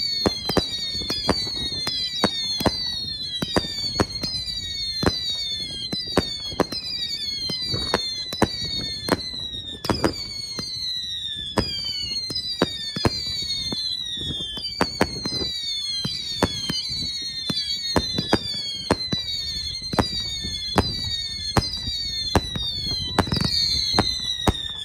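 Multi-shot firework cake firing whistling shots one after another, about two a second: each shot is a short whistle falling in pitch plus a sharp bang.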